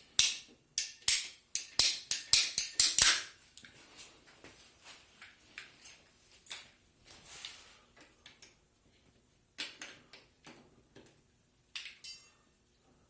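Hand work on plastic drain fittings: a quick run of about nine sharp clicks and knocks over the first three seconds, then scattered fainter clicks and rustling with two louder knocks near the end.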